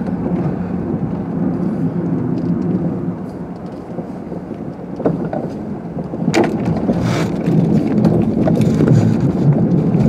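Car driving slowly on a snow-covered street, heard inside the cabin: a steady low engine and tyre rumble that eases off about four seconds in and grows louder again, with a few sharp knocks and crunches about five to seven seconds in.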